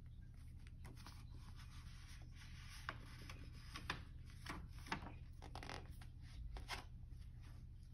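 Paper pages of a picture book being handled and turned: faint rustling with a few sharper page flicks around three to five seconds in.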